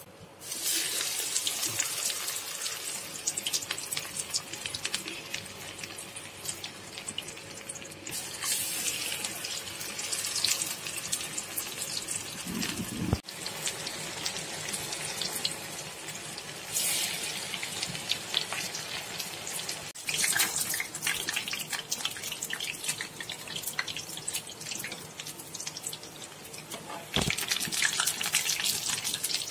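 Banana-flower vadai deep-frying in hot oil: a dense sizzling crackle that surges several times, with a couple of brief low thuds.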